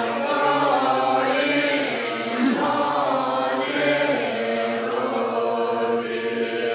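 Many voices, mostly women's, chanting a Tibetan Buddhist prayer text in unison: a steady recitation held on one low note, with phrases that rise and fall over it.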